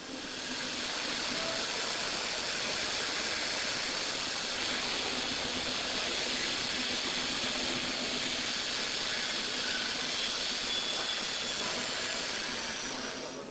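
eurolaser XL-3000 100 W laser cutting system running while it cuts synthetic leather: a steady, even hiss with no rhythm.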